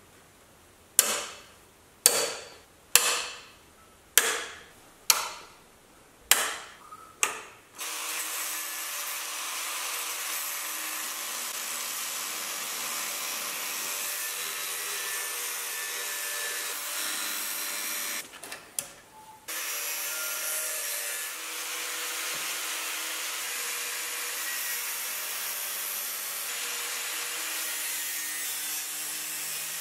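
Angle grinder with a thin cut-off disc cutting through the sheet-steel door sill, running steadily with a short break about two-thirds of the way through. Before it starts, about seven sharp metallic knocks come roughly a second apart, each ringing out briefly.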